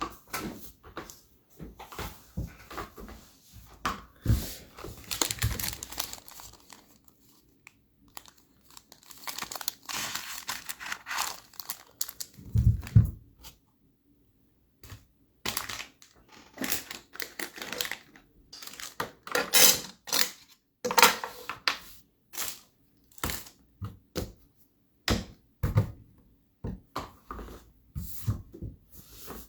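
Plastic packaging being handled, crinkled and torn close to the microphone, in irregular bursts with short pauses, with a dull thump about halfway through.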